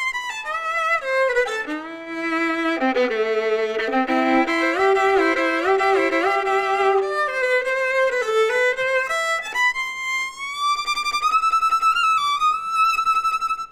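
Solo violin played with the bow: a slow melody with vibrato on the held notes. In the last few seconds a long high note slides slowly upward before the sound cuts off.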